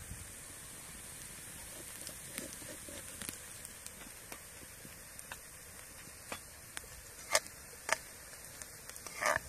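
Eggs frying in oil in a metal pot over a wood fire: a steady sizzle with scattered crackles and a couple of sharp pops in the second half. A spoon stirs the eggs, with a short louder scrape just before the end.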